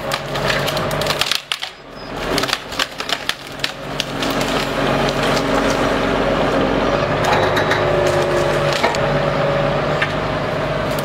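Tractor-mounted timber crane at work: a diesel engine running steadily under a hydraulic whine, with many sharp cracks and snaps of conifer branches as the grapple grabs and drags felled trees.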